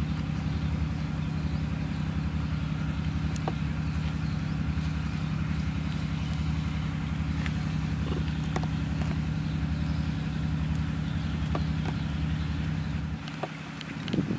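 A steady engine-like drone with a regular pulsing beat, running evenly and cutting off about a second before the end, with a few faint clicks over it.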